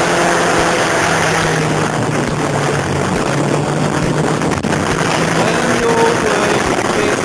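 Sport motorcycle engine under heavy wind noise on an onboard microphone, the engine note sinking steadily as the bike slows to about 70 km/h and leans into a bend.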